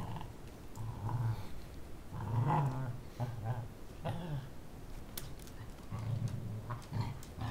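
Puppies growling in play as they wrestle over a cloth toy, in several short bouts of low growling.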